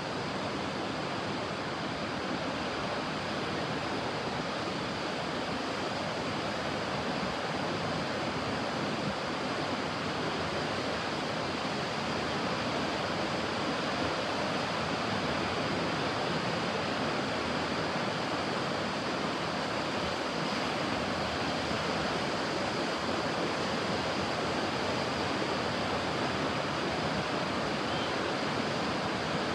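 Ocean surf washing steadily, an even, continuous rush of waves with no distinct breaks, getting slightly louder partway through.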